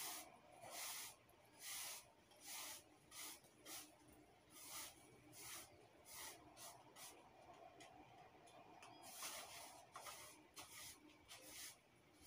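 Broom sweeping a floor: faint, scratchy swishes of the bristles, one stroke about every second.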